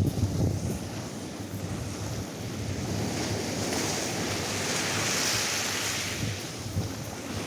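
Atlantic surf: a wave breaks and washes up the sand, swelling to a hiss about halfway through and then fading. Wind buffets the microphone near the start.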